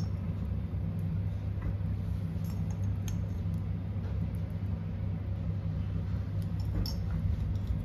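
Steady low mechanical hum, with a few faint light clicks as a spoon sprinkles powder over a steel plate of mix.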